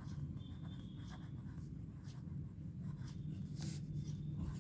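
Pen scratching on notebook paper as a word is handwritten: faint, short, irregular strokes over a steady low hum.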